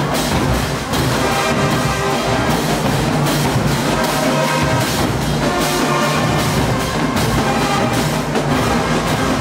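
Loud music with brass instruments and drums playing over a steady beat.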